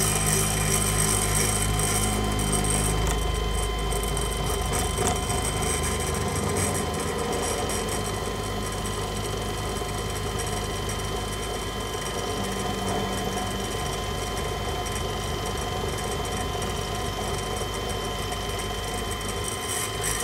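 Harbor Freight mini mill, converted to CNC with a 500-watt motor and belt drive, running a small end mill through aluminum: a steady whine from the spindle and motor over the noise of the cut. A low hum is stronger for the first three seconds or so, then eases.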